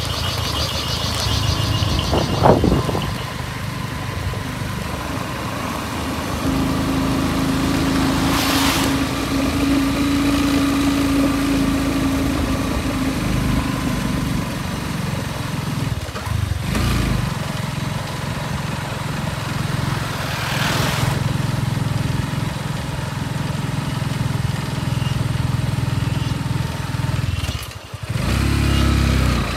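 A two-wheeler's engine running steadily while riding, with wind rushing over the microphone. A short thump about two and a half seconds in, and the sound drops away briefly near the end before picking up again.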